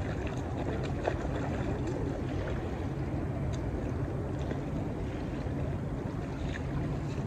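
Feet splashing and sloshing in shallow river water as someone wades in and out at the bank, over a steady low rumble.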